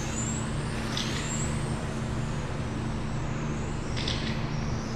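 Electric 1/10-scale RC touring cars racing on a carpet track: high-pitched motor whine rising and falling as the cars speed up and slow, with short hissing passes about a second in and near the end, over a steady low hum.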